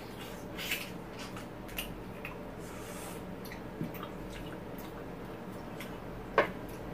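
Eating sounds of someone eating dakbokkeumtang (braised spicy chicken with rice cake): faint wet chewing and scattered small mouth or utensil clicks, with one sharper click about six and a half seconds in.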